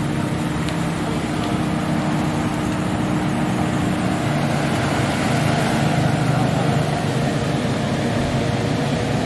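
Toyota Alphard minivan's engine idling, a steady low hum.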